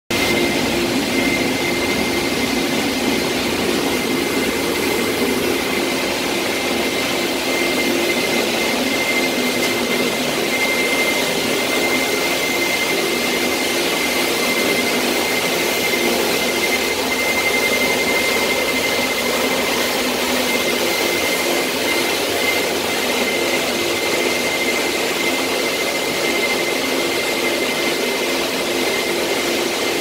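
Walk-behind planetary concrete floor grinder and its dust-extraction vacuum running steadily while grinding a concrete floor to strip old glue. A constant high whine and a low hum sit over a steady rush of noise, with no change in level.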